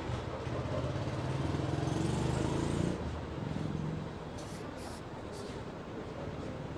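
A motor vehicle's engine running close by, swelling over about three seconds and then fading, followed by a few faint, sharp high-pitched clicks.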